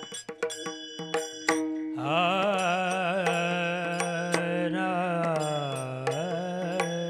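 A male devotional singer holding one long, wavering note with vibrato in a Warkari abhang melody, dipping in pitch about a second before the end and rising back, over rhythmic percussion strikes. For the first two seconds, before the note begins, only the accompaniment's strikes and steady tones are heard.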